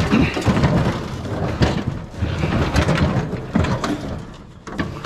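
Scrap items being handled and shifted around, with irregular metal clattering, scraping and knocks that ease off near the end.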